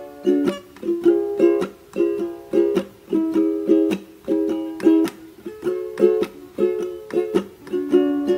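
Background music: a plucked string instrument playing chords in a steady rhythm, with no singing.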